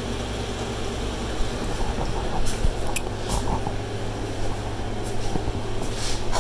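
Steady hum and whoosh of a running shop fan, with a few faint clicks and knocks over it.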